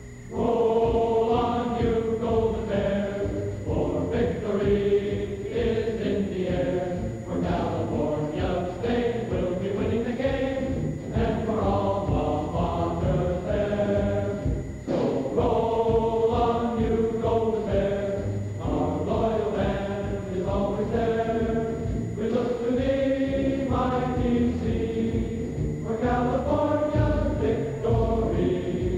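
A choir singing: several voices holding long, slowly gliding notes in phrases a few seconds long, without clear words.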